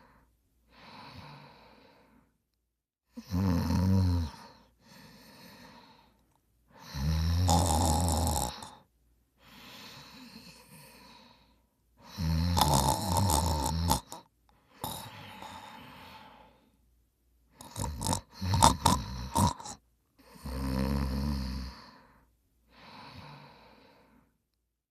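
A person snoring in a slow, regular rhythm: a loud, low rattling snore on each breath in, about every four to five seconds, followed by a quieter breath out. One snore a little past the middle comes out broken and choppy.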